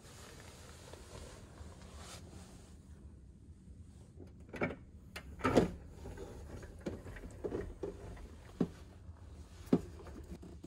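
A capsule hotel's roll-down privacy blind being pulled down over the capsule's entrance: a series of sharp knocks and rattles over several seconds, the loudest about halfway through, over a low steady hum.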